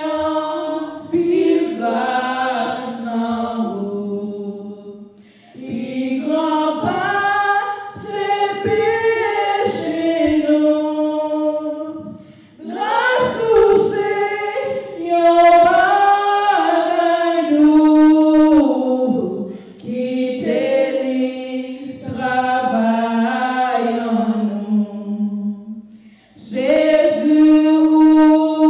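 A woman singing a hymn unaccompanied into a microphone, in long phrases with short breaks between them.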